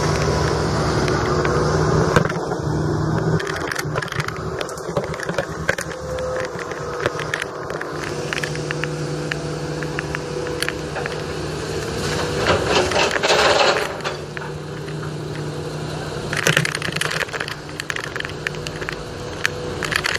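Diesel engine of heavy earth-moving machinery running steadily as a low hum, with scattered scrapes, clinks and knocks over it.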